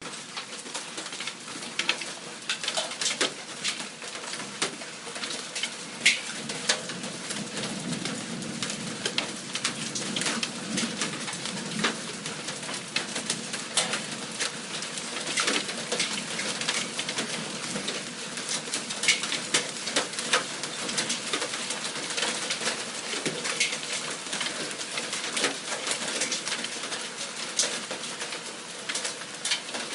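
Hailstorm: dense, irregular ticks and sharp cracks of hailstones striking surfaces over a steady rain-like hiss, with occasional louder individual hits.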